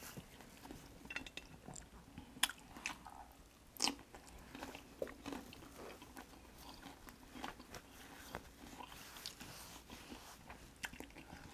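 Close-miked eating: soft, wet chewing and biting with scattered small clicks, and a couple of sharper crunches about two and a half and four seconds in.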